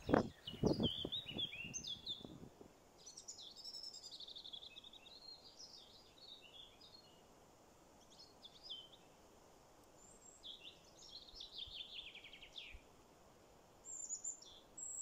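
Small birds singing, a run of chirps and trills with a falling trill near the end. A few low thumps sound in the first two seconds.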